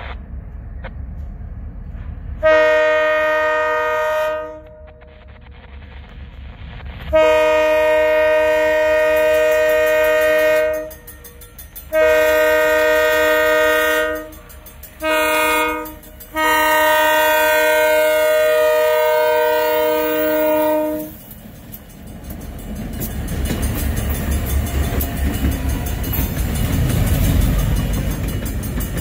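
Union Pacific diesel locomotive's multi-note air horn sounding five blasts for a road grade crossing, the fourth one short and the last one long. After the horn, the lead locomotives' engines and wheels rumble past, growing louder.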